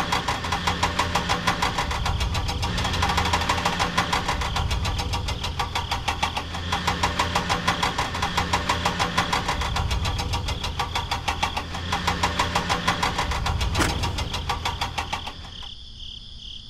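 A small motor running with a fast, even knocking rhythm and a low hum, as the toy crane truck's geared winch reels in the tow chain. Most of the sound cuts off sharply near the end.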